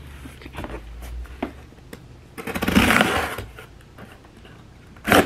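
Hands handling a cardboard shipping box: scattered light knocks, a rustling scrape about a second long around the middle, and a short sharp sound near the end.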